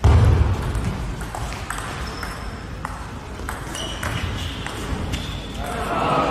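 Table tennis ball being struck back and forth in a rally, with sharp clicks roughly every half second off rackets and table. A low thump comes right at the start, and voices rise near the end as the point finishes.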